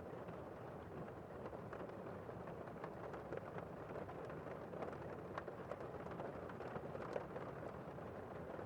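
Steady rainfall, with many individual drops ticking sharply through an even hiss.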